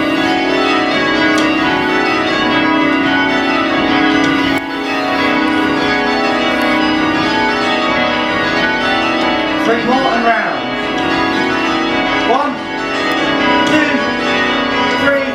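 A ring of eight church bells, cast by John Taylor & Co in 1965 with the tenor in B, being change rung: the bells strike continuously in changes, their tones overlapping into a dense ringing hum.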